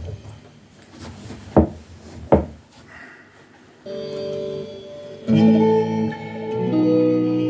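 Improvised instrumental playing: two sharp clicks about a second and a half and two and a half seconds in, then sustained notes ring out from about four seconds in, joined by a louder chord a second or so later.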